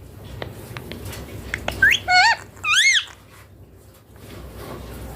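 Indian ringneck parakeet giving three short, loud calls, each rising and falling in pitch, about two to three seconds in, after a few faint clicks.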